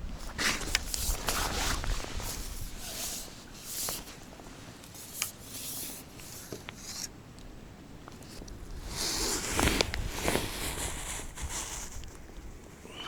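Irregular rustling and handling noises with a few sharp clicks, from an angler handling gear and a freshly landed fish.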